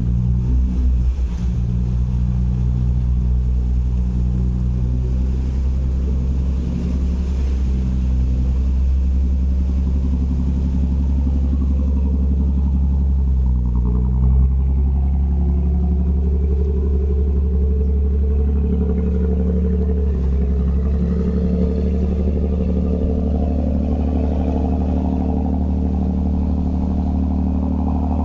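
Small harbour ferry's diesel engine running with a steady low rumble as the boat pulls away from the pier. Its note changes about halfway through, then rises steadily as it picks up speed.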